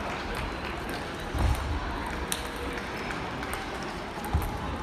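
Busy table tennis hall: scattered sharp clicks of table tennis balls being struck and bouncing on tables all around, over a steady background murmur, with a couple of dull thuds.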